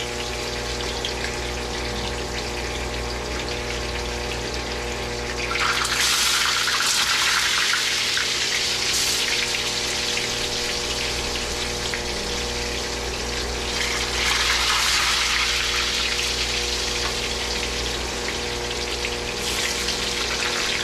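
Breadfruit frying in hot oil: a steady sizzle that swells louder about six seconds in and again about fourteen seconds in, over a steady low hum.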